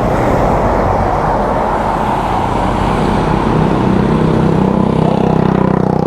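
Motor scooter riding in traffic: its engine runs steadily under a rush of wind and road noise, and the engine note grows stronger in the second half.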